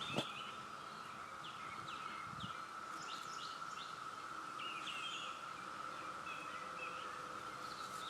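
Chorus of 17-year periodical cicadas making a steady, unbroken drone, with short bird chirps repeating over it.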